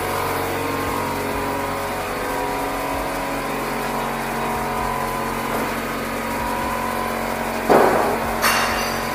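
A small engine running steadily at an even pitch. A brief rushing noise comes near the end.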